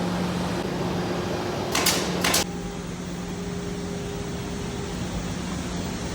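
Steady machine hum over a background of even noise, broken about two seconds in by two short, sharp hissing bursts about half a second apart.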